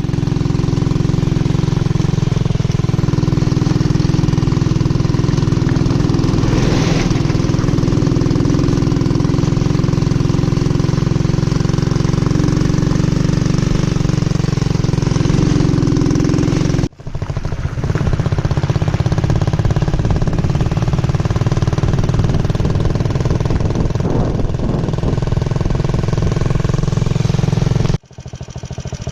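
Honda CG 125 motorcycle's single-cylinder four-stroke engine running steadily, up close. The sound breaks off abruptly about two-thirds of the way through and picks up again at once, then cuts again near the end and resumes quieter.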